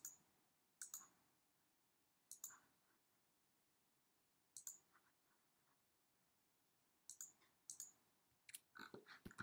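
Faint, scattered computer mouse clicks, a few single clicks spread a second or two apart and then a quicker run of clicks near the end, as objects are selected on screen.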